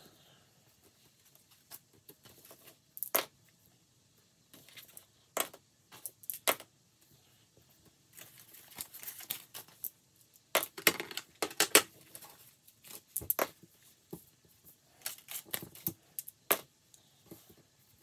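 Desk handling sounds as cash and a savings binder are worked: irregular taps and clicks, with a few longer stretches of paper rustling about halfway through.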